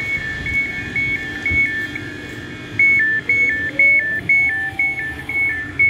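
Train door warning beeps: a repeating high-low two-tone chime, about two pairs a second, faint at first and much louder from about three seconds in as the doorway is entered.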